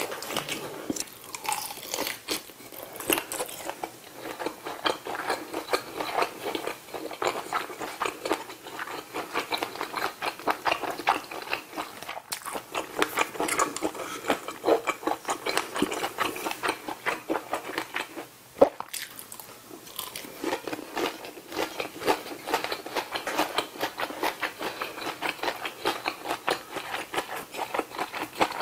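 Close-miked biting and chewing of food, starting with a bite into a grilled kielbasa sausage: a steady run of crisp mouth clicks and crunches. One louder, sharp click comes about two-thirds of the way through.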